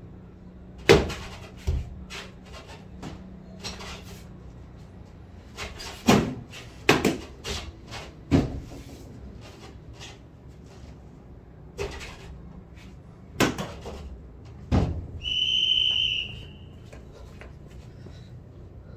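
Tennis ball knocking off a cricket bat, tiled floor and wooden door in a small hard-walled room: a series of sharp, irregular knocks with a short echo. About fifteen seconds in, a high steady whistling tone sounds for about a second and a half.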